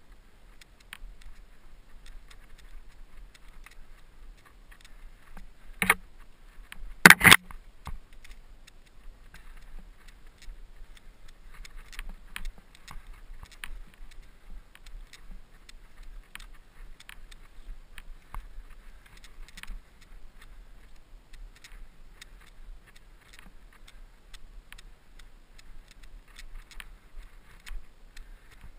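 Mountain bike rattling and clicking as it is ridden over rough trail, with two loud knocks about six and seven seconds in.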